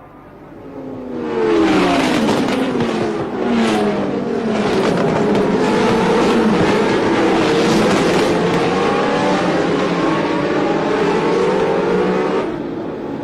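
A stream of 1977 Formula One cars passing at racing speed, one after another. Their engine notes overlap and each drops in pitch as it goes by, swelling about a second in and falling away near the end.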